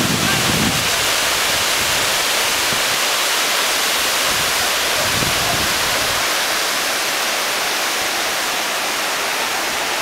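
Steady rush of the Gega waterfall, water pouring down a cliff face into a pool.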